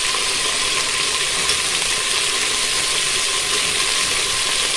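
Oxtail pieces sizzling steadily as they brown in a hot pot.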